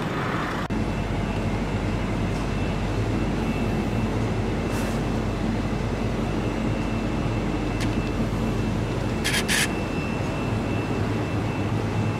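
Steady low hum and noise of supermarket refrigeration and ventilation around open freezer chests, with a faint high steady tone and two brief clicks about nine and a half seconds in.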